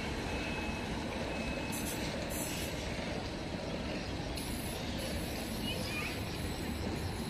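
Steady low rumble of trains moving through a railway station: a locomotive-hauled passenger train pulling away into the distance while an electric multiple unit approaches from afar.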